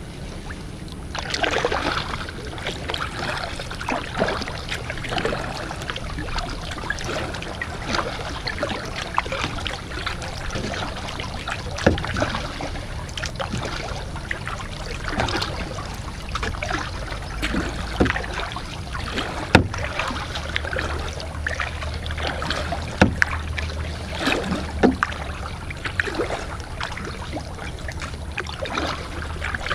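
Kayak paddle strokes in calm water: the blade dipping and dripping, with small splashes, knocks and trickles throughout over a low rumble.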